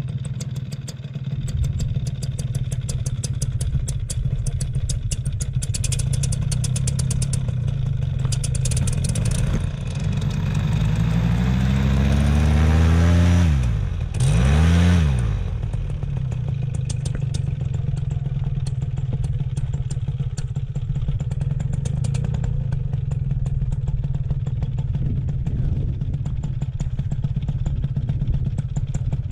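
Paramotor engine running steadily at idle, revved up over a few seconds about ten seconds in, dropping off sharply, then revved briefly once more before settling back to a steady idle.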